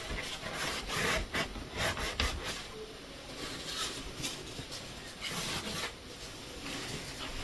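Irregular rubbing and rustling handling noises: a string of short, uneven scrapes with no squeal or steady tone.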